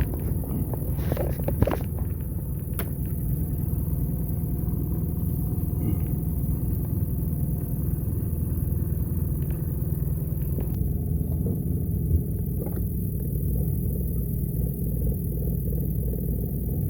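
Boat motor running steadily at low speed, with a few light knocks over it.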